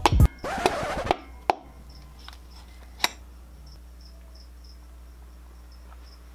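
A hammer handle taps a piston down through a ring compressor into the cylinder bore of a Mazda Miata VVT engine block: a short scrape, then two sharp taps about a second and a half apart. Faint cricket chirping and a low hum run underneath.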